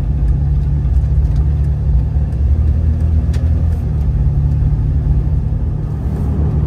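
Jeep TJ driving on a city street, heard from inside the cab: a steady low drone of engine and road noise.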